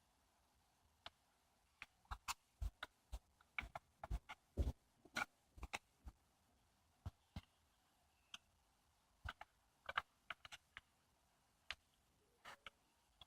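Faint, irregular small clicks and taps of hands handling laptop RAM modules in an open MacBook Pro during a memory swap, bunched together a couple of seconds in and sparser later.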